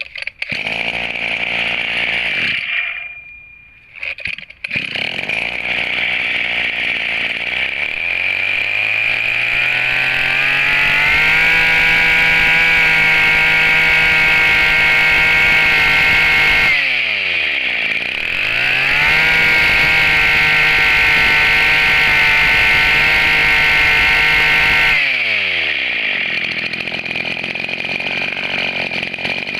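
Makita MEM264 brush-cutter engine pull-started by its recoil rope, catching at once and nearly dying about three seconds in, then idling. It is revved up twice, each time held at high speed for about five seconds before dropping back to idle.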